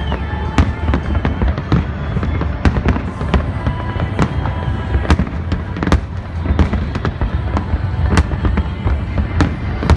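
Fireworks display: aerial shells bursting in quick irregular succession, several sharp bangs and crackles a second over a continuous low rumble of booms.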